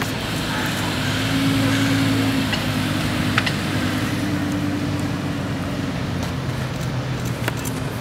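Audi R8's mid-mounted V10 engine running at low revs as the car pulls away at walking pace, a steady low tone. It is loudest about two seconds in, then slowly fades as the car moves off.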